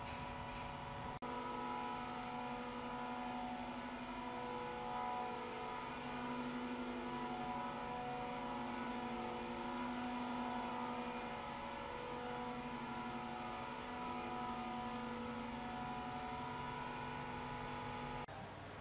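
Diesel train engine idling steadily, a droning hum with several steady pitches, starting abruptly about a second in and cutting off abruptly near the end.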